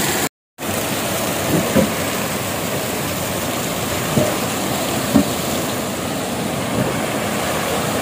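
Steady rushing of a fast-flowing stream tumbling over rocks, after a brief dropout at the very start.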